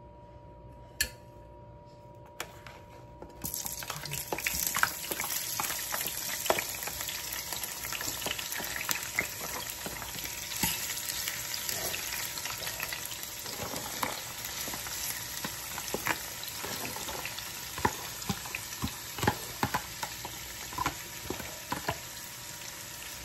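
Sliced bell peppers, carrots and onion going into hot oil in a stainless steel frying pan: a sizzle starts suddenly about three and a half seconds in and keeps going, with scattered clicks as the vegetables are pushed in and stirred with a fork.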